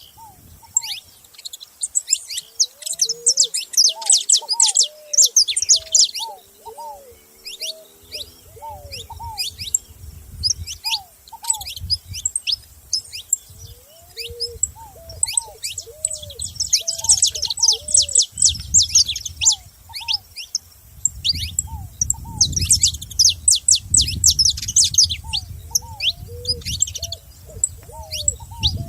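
Several saffron finches chirping in a busy, overlapping chorus of quick high calls, with repeated lower arched notes running beneath them. A low rumble joins from about eight seconds in.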